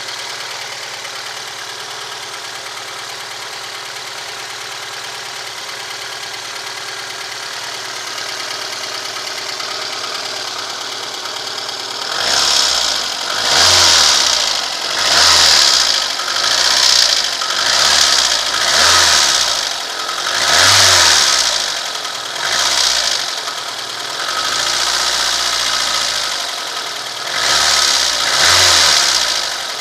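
Lada VAZ-2115's four-cylinder engine running steadily, then from about twelve seconds in revved up and let off again and again, roughly every second and a half. This is to bring out a knock that the owner hears only when the throttle is released or the engine runs without load.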